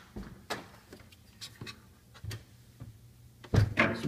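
Light clicks and knocks from an open refrigerator freezer being handled, with a louder clatter near the end.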